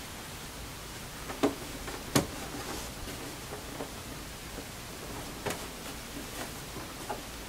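A few scattered clicks and taps over a steady low hiss: fabric pieces and the sewing machine being handled during chain piecing. The sharpest tap comes about two seconds in.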